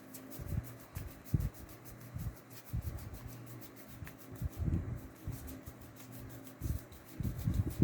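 Handling sounds of trading cards and packaging on a table: soft rubbing and sliding with irregular dull thumps as cards and boxes are set down.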